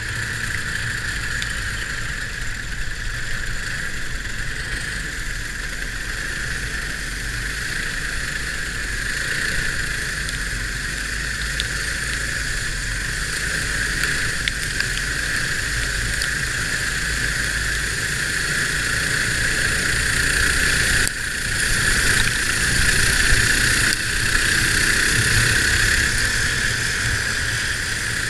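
Go-kart with a sealed Predator 212cc single-cylinder engine running steadily at moderate speed, other karts' engines close by. The sound dips briefly once, about three-quarters of the way through.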